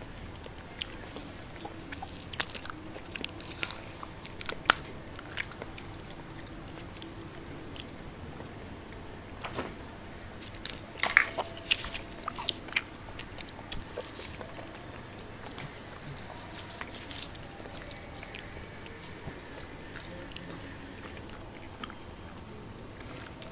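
Close-miked eating: biting and chewing with crisp crunches and small clicks, in clusters a few seconds in and again around the middle.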